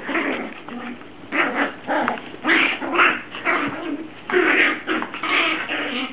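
Dogs wrestling in play, making repeated short whines, yips and grumbling noises in irregular bursts about twice a second.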